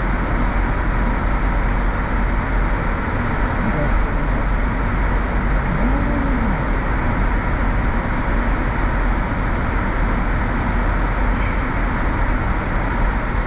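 Steady road and tyre noise with a low engine rumble from a car driving along a road, with one brief tone rising and falling in pitch about six seconds in.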